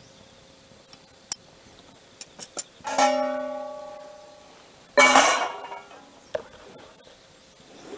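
An aluminium mess-kit pan clanking on a steel fire grill. A few light taps come first, then about three seconds in a clang that rings on like a bell and fades over a second or so, and about two seconds later a louder, harsher clatter.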